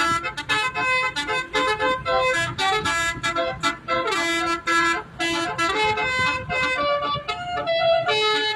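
A bus's basuri musical horn playing a fast melody of many short notes, over a low rumble.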